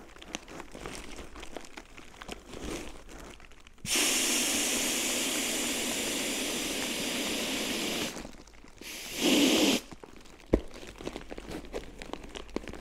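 Air rushing out of the opened valve of a Therm-A-Rest NeoAir XTherm inflatable sleeping pad with a person lying on it. A steady loud hiss starts suddenly about four seconds in and lasts about four seconds, then a second short hiss comes about a second later. Light crinkling of the pad's rustly fabric comes before and after.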